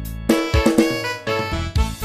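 Instrumental music: a keyboard melody over a beat of repeated sharp hits and low thumps.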